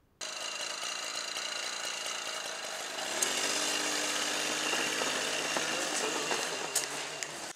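Small two-stroke engine of a 1954 roller-drive moped running under way. It starts abruptly, and about three seconds in its note settles into a steady pitch.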